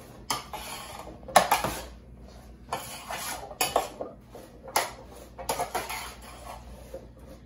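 A metal spoon stirring chopped vegetables in a roasting pan: irregular clinks and scrapes against the pan, with the loudest clank about a second and a half in.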